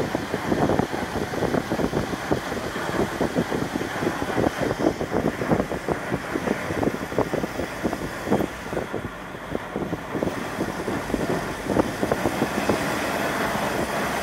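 Car driving along, its road and tyre noise heard from inside the cabin, with many irregular short crackles or knocks over it. The sound becomes steadier near the end.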